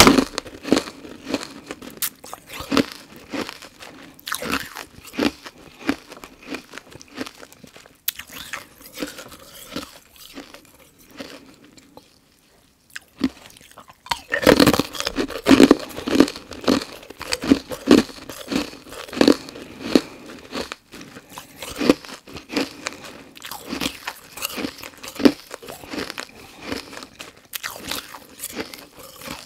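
A person biting and chewing carbonated ice cubes: loud, crisp crunches about one to two a second, thinning to quieter chewing with a brief pause around the middle, then a fresh cube bitten into and crunched hard again.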